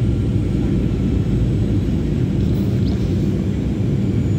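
Steady low rumble of a passenger plane's cabin noise, engines and airflow heard from inside the cabin as the plane descends to land.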